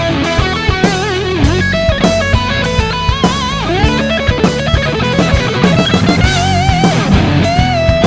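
Background music: an electric guitar lead with bent, wavering notes over a steady drum beat.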